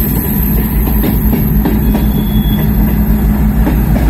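Freight train passing at close range: coal hopper cars roll by with a steady low rumble and a hum, and scattered clicks from the wheels on the rails. Near the end a diesel locomotive draws alongside.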